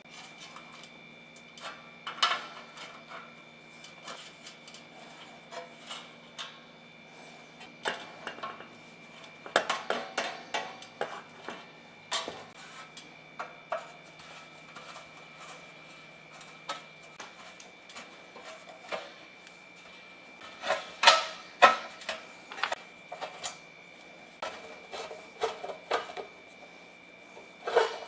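Irregular light clicks, taps and clinks of small hard parts being handled, coming in clusters, over a faint steady hum.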